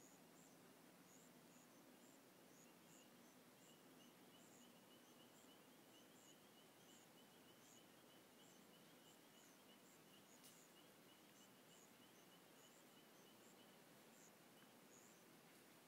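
Near silence: faint insects chirping, with irregular high chirps and a soft pulsing trill.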